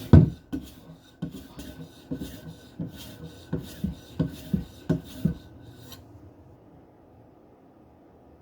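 Hard polymer strop charged with 40 micron diamond emulsion in oil, drawn across an S90V steel knife edge in repeated rasping strokes, about two or three a second. The strokes stop about six seconds in.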